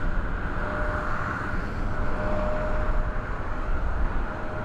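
A Boeing 787-9's Rolls-Royce Trent 1000 jet engines at climb power just after takeoff: a steady jet roar with a deep rumble and a faint humming tone that comes and goes.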